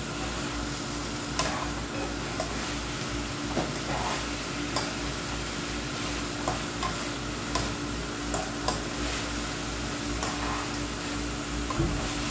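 Chicken and Baguio beans sizzling in a frying pan as they are stir-fried, with a steady hiss and a metal spatula scraping and clicking against the pan every second or so.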